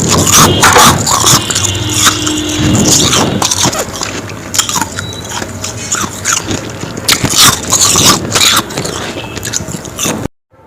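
Close-up biting and chewing of powdery frost ice: dense, irregular crisp crunches in quick succession, stopping abruptly just before the end.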